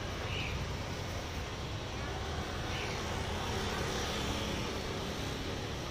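Steady rumble of street traffic, with motor vehicles passing on the road.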